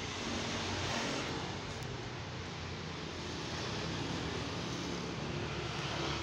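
Ford Everest 2.5's four-cylinder turbo-diesel engine idling steadily.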